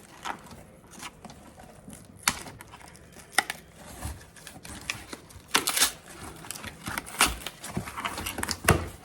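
Shipping packaging around a jar candle being pulled and torn open by hand: irregular crinkling, tearing and sharp crackles with a few low knocks, busier in the second half.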